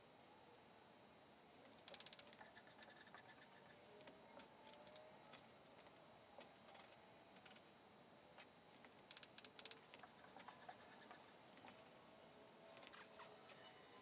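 Near silence: faint room tone, broken twice by a brief run of rapid clicking, about two seconds in and again around nine seconds in.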